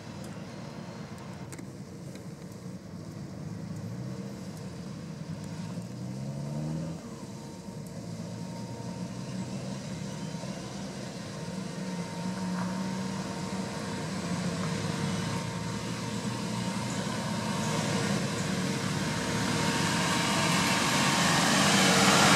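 Suzuki Samurai 4x4's engine running at low revs as it crawls along a dirt track, with a brief rise in revs about six seconds in. It grows steadily louder as the vehicle approaches.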